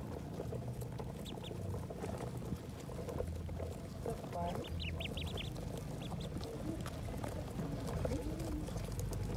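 A brood of ducklings peeping, short high chirps in scattered clusters, thickest about halfway through, over a low steady hum.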